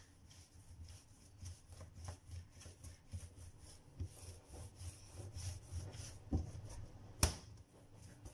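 Hands kneading pandesal dough on a countertop: soft, repeated pushing and rubbing strokes with a few knocks, the sharpest one a little before the end.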